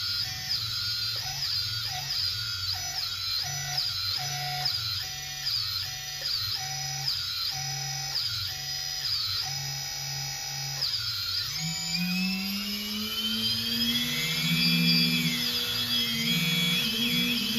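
Brushless quadcopter motors on AM32 ESCs spinning without propellers, a whine whose pitch steps up and down in quick, even pulses as the throttle is blipped, then rises and falls in smooth glides for the last few seconds.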